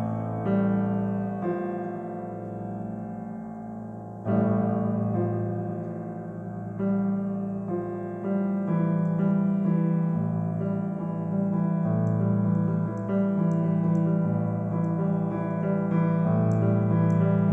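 Solo piano playing a slow, self-composed piece of sustained notes and chords, with a loud new chord struck about four seconds in.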